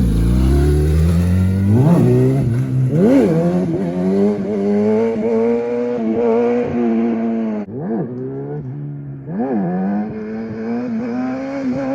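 Small off-road vehicle engine running and being revved in short throttle blips, its pitch jumping up and dropping back several times between steadier stretches.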